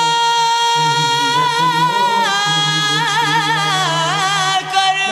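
Solo voice singing Sindhi Sufi devotional poetry: a long high note held for about two seconds, then a wavering, ornamented line that falls in pitch, over a steady low drone.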